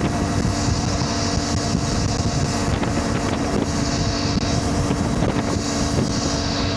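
CF Moto 450 MT motorcycle's parallel-twin engine running at a steady pitch while riding, with wind rushing over the microphone.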